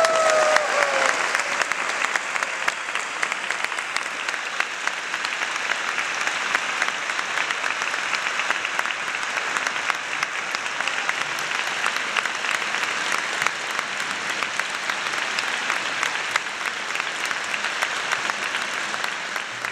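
Audience applauding steadily, a dense, even clapping that eases slightly near the end.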